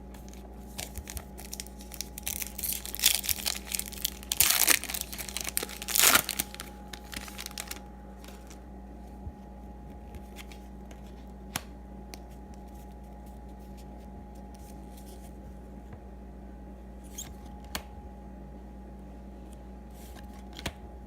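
Foil wrapper of a baseball card pack being torn open and crinkled: a flurry of tearing and rustling over several seconds, loudest about two to six seconds in, then only a few faint ticks over a steady electrical hum.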